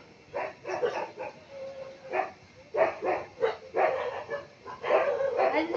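An animal's short yelping calls, about a dozen in quick, uneven succession, with a brief steady whine a third of the way in.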